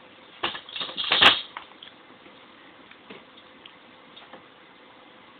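A quick cluster of sharp clicks and knocks, the loudest just over a second in, followed by a few faint, scattered ticks.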